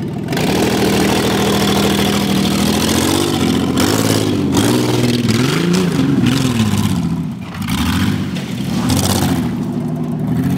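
Minivan engine revving up and down several times as the van drives over a pile of asphalt millings, with a short drop in the engine note about three quarters of the way through.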